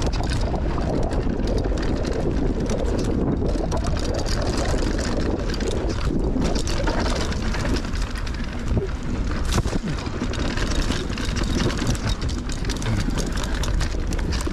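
Wind rushing over the action camera's microphone and the knobby tyres of an Orbea Rise electric mountain bike rolling fast over a dirt trail, with frequent clicks and rattles from the bike over bumps.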